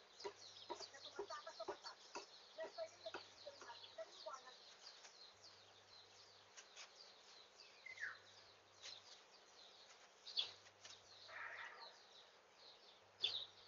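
Faint chicken clucking in the first few seconds, over steady, rapid, high-pitched chirping of birds. A single falling call comes about eight seconds in.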